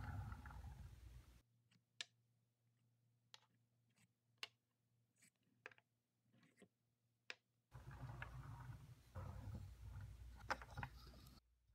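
Faint sharp clicks and knocks of wooden toy blocks and train cars being handled and pulled apart. The taps come one at a time, roughly a second apart, over near silence.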